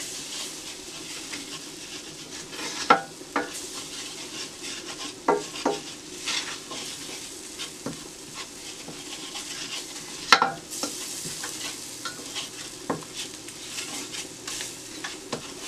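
Wooden spoon stirring and scraping a butter-and-flour roux in a stainless steel pot over a steady low sizzle, with a few sharper knocks of the spoon against the pan, the loudest about ten seconds in.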